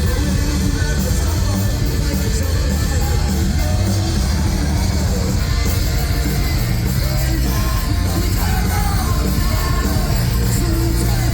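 Live rock band playing loudly, with heavy bass and sung and shouted vocals over the band.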